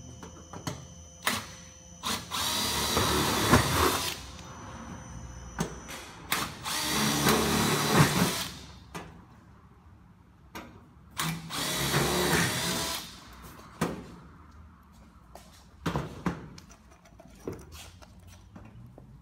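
Cordless drill driving hex-head roofing screws through steel ridge capping, in three runs of about two seconds each. Short clicks and taps fall between and after the runs.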